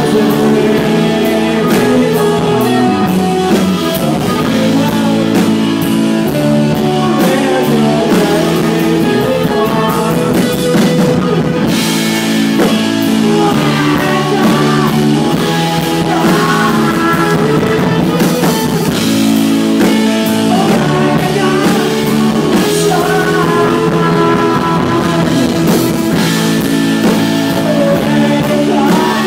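Live rock band playing a song loudly, with electric guitars, a drum kit and singing.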